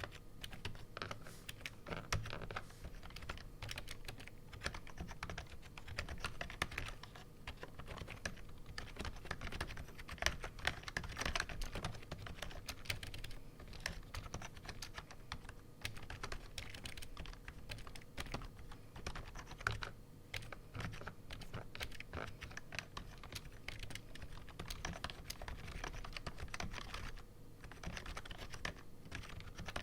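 Continuous typing on an AppleDesign Keyboard with Alps slider-over-dome switches and PBT dye-sub keycaps: a dense run of key clicks and bottoming-out taps, with a few short pauses.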